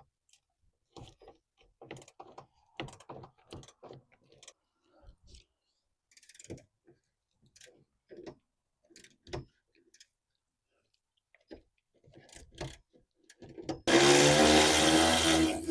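Scattered clicks and ratchet ticks of socket work on a bolt, then, about fourteen seconds in, a small power tool's motor runs loudly for about two seconds.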